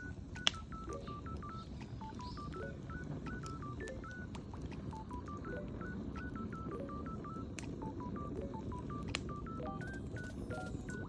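A simple background melody of short, beep-like notes that step up and down in quick runs, over a steady low rushing noise. Now and then there is a sharp crack, once about half a second in and again near the end.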